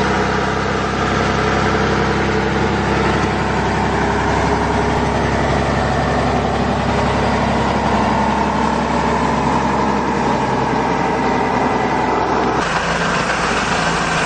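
Heavy truck's diesel engine running steadily at low speed as a tractor unit hauls an aircraft fuselage section on a trailer. The engine sound changes abruptly near the end.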